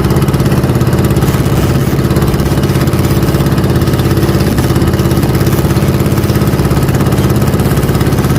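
A small boat's engine running steadily at a constant speed while trolling, loud and close.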